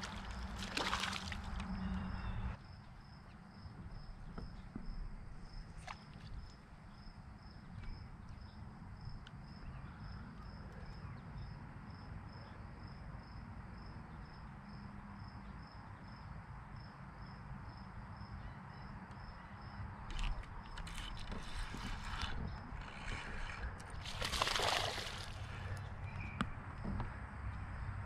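A fish splashing at the water's surface about a second in, and more splashing from around 20 seconds to near the end, over a steady low rumble. A faint, regular high ticking runs underneath, about twice a second.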